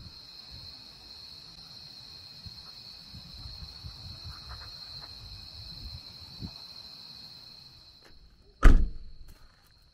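Night insects singing a steady, high-pitched trill over a low rumble. The trill fades, and then a single loud thump sounds near the end, a car door shutting.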